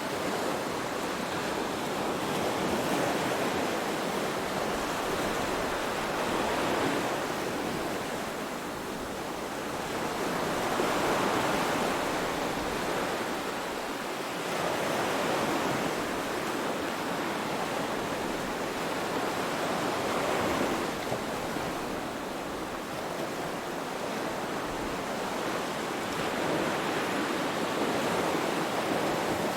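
Ocean waves washing in, a steady rush of surf that swells and eases every few seconds.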